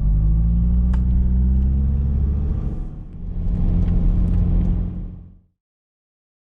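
A 4WD's engine pulling away, its pitch rising steadily, dipping briefly about halfway, then rising again. The sound fades out to dead silence about five seconds in.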